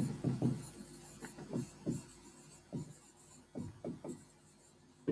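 Stylus writing on an interactive display screen: a series of short, quiet scratchy strokes with brief pauses, as words are written out by hand.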